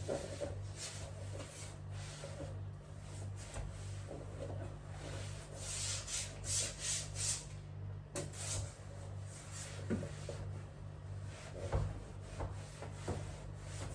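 Cleaning cloth wiping and scrubbing a fridge's surfaces in repeated rubbing strokes, with a few light knocks, over a steady low hum.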